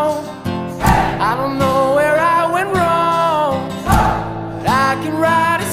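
Background music: a song with a singing voice over guitar, with strong beats about every three seconds.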